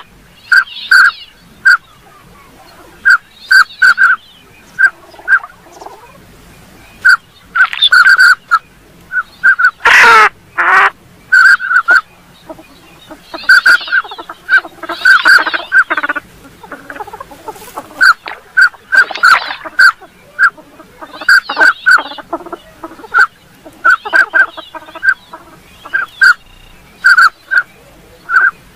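Northern pintail calls: short whistled notes, often in pairs or quick bunches, mixed with longer, rougher calls every few seconds, the loudest about ten seconds in.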